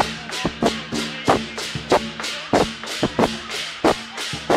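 Lion dance percussion: a drum and clashing cymbals beaten in a steady rhythm of about three strikes a second, each crash ringing on.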